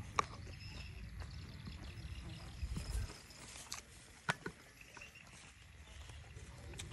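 Someone eating crisp quick-pickled eggplant: chewing and crunching, with a few sharp clicks like chopsticks tapping a bowl, over a low rumble.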